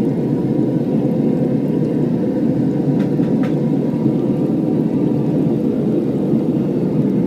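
Devil Forge gas-fired melting furnace burner running with a steady roar, with two faint ticks about three seconds in.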